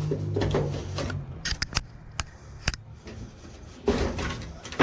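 Sharp clicks and scraping as parts of a Whirlpool Cabrio dryer are handled during disassembly, with a few quick clicks in the middle and a rustling scrape near the end.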